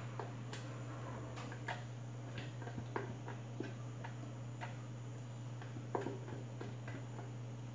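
Spatula scraping and knocking inside a plastic blender jar while emptying the batter, giving faint, irregular clicks every half second to a second over a steady low hum.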